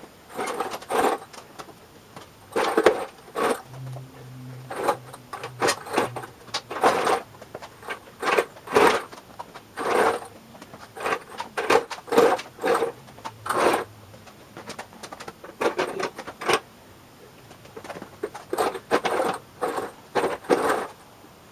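Irregular clinks and knocks of hand tools and metal engine parts being handled, one or two sharp strokes a second, with a faint low hum for a couple of seconds about four seconds in.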